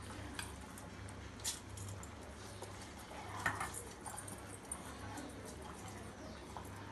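Drained soaked rice being handled and tipped from a steel container into a steel mixer-grinder jar: a few faint taps and clinks of metal, the clearest about a second and a half in and again near the middle, over a low steady hum.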